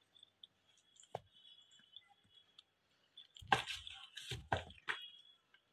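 Cats shifting in a cardboard box: a few short scuffs of fur and paws against cardboard, loudest about three and a half and four and a half seconds in, with a faint click about a second in.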